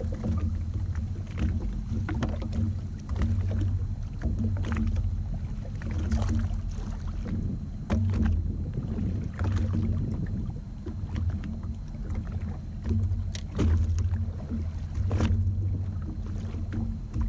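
Sea-Doo personal watercraft's engine running at idle, a steady low hum, with short knocks and splashes now and then.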